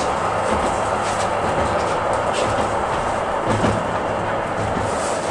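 A streetcar heard from inside as it runs along: a steady rumble and rolling hiss of wheels on rail, with a couple of short knocks from the running gear.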